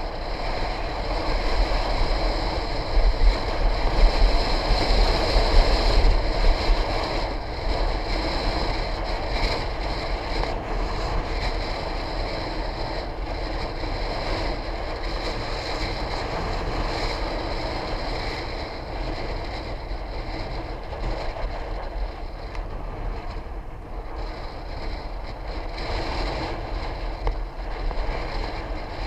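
Wind rushing over the microphone, with a low rumble, during a fast downhill ride.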